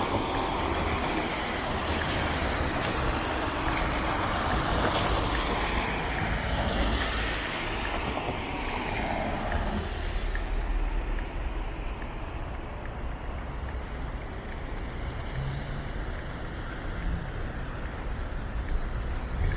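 U-Bahn train running through an underground station, a loud rumble with a shifting wheel-and-track noise that fades about ten seconds in, leaving a lower, steady station rumble.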